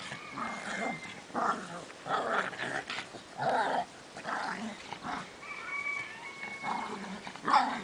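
A dog barking repeatedly in short, irregular barks, about one or two a second, with the loudest bark near the end.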